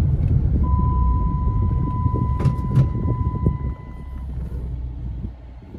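Dodge Challenger V6 engine running hard under throttle with a low rumble, falling off to a quieter run a little over halfway through. A steady high tone sounds alongside for about three and a half seconds, with two short clicks in the middle.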